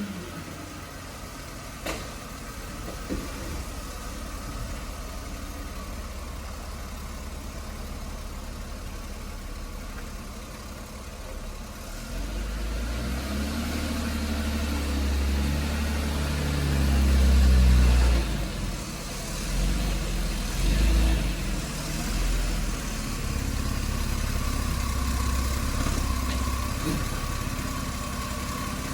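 BMW X5 driving, with engine and road noise. The engine runs quietly at first, then about halfway through it climbs in pitch and loudness as the SUV accelerates, and it settles into a steady cruise near the end.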